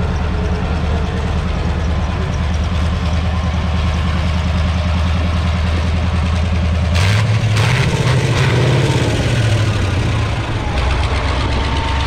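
Tractor engine running steadily, then revving up about seven seconds in, with a couple of sharp clicks, and dropping back to a lower speed near the end.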